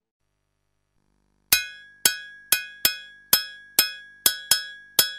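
Silence, then about a second and a half in, a metal bell starts striking a repeating, uneven rhythm of sharp ringing hits: the bell pattern that opens a West African music track.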